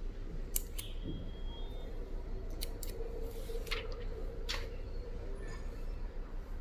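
Sharp clicks from a rugged smartphone being handled while it is switched on: about six in all, some in quick pairs, over a low steady hum.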